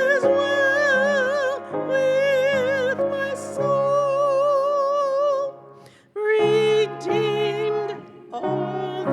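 Slow, hymn-like music: a held melody line with wide vibrato over sustained accompanying chords, phrase by phrase, with brief breaks between phrases.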